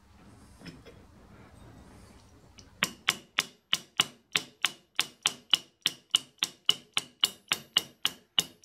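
Small hammer tapping a steel cam timing sprocket home onto the camshaft. About three seconds in, a steady run of about twenty quick taps begins, roughly three a second, each with a short metallic ring.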